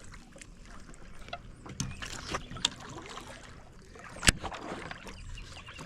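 Water splashing and sloshing around a small fishing boat as a dog swims alongside, with scattered knocks against the hull and one sharp loud click about four seconds in.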